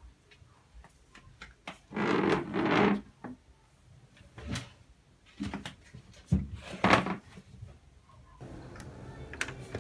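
Handling noises at a wooden desk: two short scraping rubs about two seconds in, then a few light knocks as things are moved and set down on the desktop.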